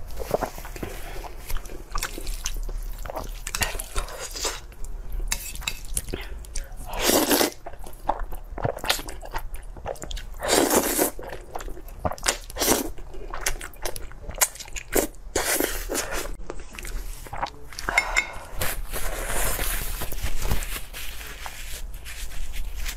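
Close-miked eating sounds: wet chewing and lip smacking with crisp little clicks, and several longer noisy slurps of spicy instant noodles.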